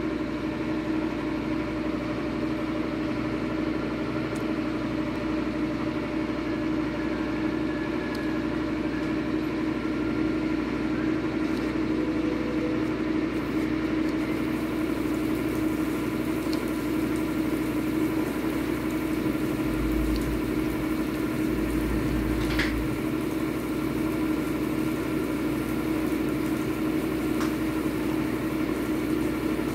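Steady mechanical hum of a running motor, a constant low drone that never changes, with a faint click about two-thirds of the way through.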